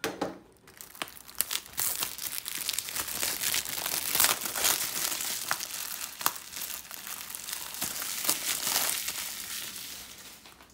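Plastic shrink wrap being cut and peeled off a Blu-ray case: a dense crinkling and crackling with scattered sharp clicks, building about two seconds in and fading out near the end.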